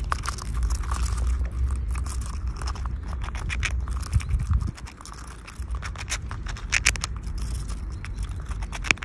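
Eurasian red squirrel gnawing a walnut shell with its teeth: a fast, irregular run of small scraping clicks, over a low rumble that eases about halfway through.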